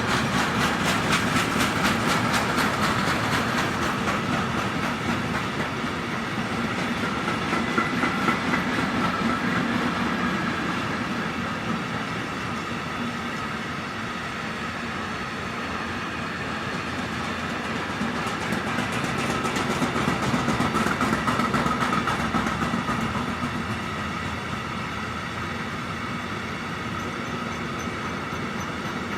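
Train wagons rolling past, their wheels clattering rhythmically over rail joints. The clatter is strongest at the start, then gives way to a steady rolling rumble that swells and fades.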